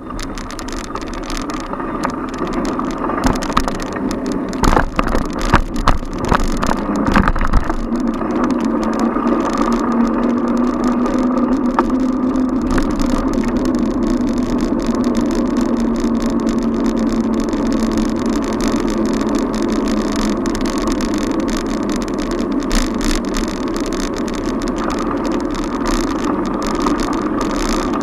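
Street traffic and riding noise picked up by a camera on a moving bicycle, over a steady rush of noise. A run of knocks and rattles fills the first several seconds. A steady engine hum, like a nearby car or bus, runs from about eight seconds in until about twenty seconds.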